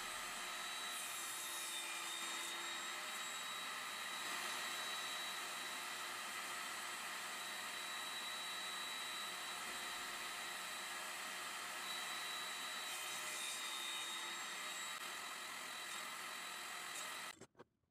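Table saw running steadily with a constant whine while thin pallet-wood strips are crosscut to length against a stop block. The sound stops abruptly near the end.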